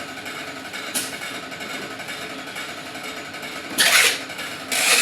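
Pouch-making machine running steadily, with two short, loud hissing bursts near the end.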